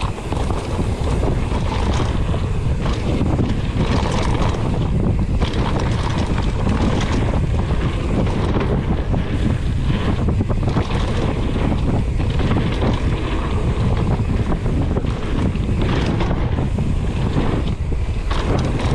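Wind rushing over the microphone of a camera carried on a mountain bike riding down a dirt trail, with a steady low rumble and scattered knocks from the bumps of the trail.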